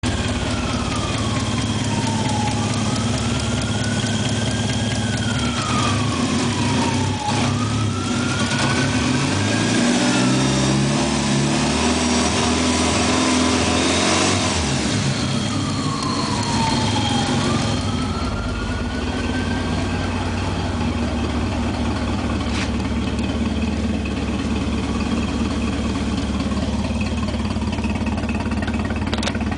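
Mitsubishi Galant VR-4's turbocharged 4G63 DOHC four-cylinder engine idling steadily, revved up once about ten seconds in and dropping back to idle a few seconds later.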